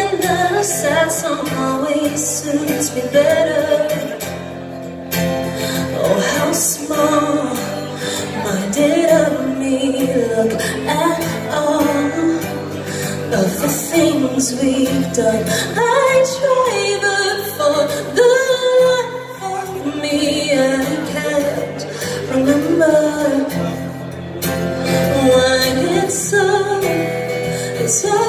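A woman singing a slow pop song live into a microphone, accompanied by acoustic guitar, amplified through a club PA.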